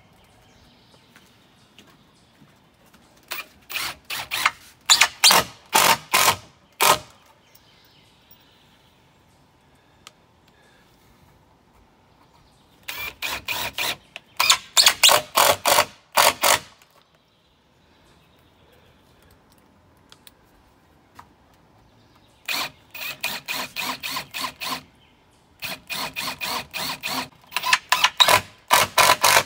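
Cordless impact driver running screws into cedar boards in four runs of quick, stuttering bursts, with quiet pauses between the runs.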